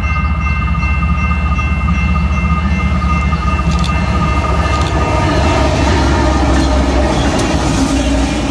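BNSF diesel freight locomotive passing close by with a deep engine rumble, then autorack cars rolling past with steady rushing wheel-and-rail noise and light clicking from about five seconds in.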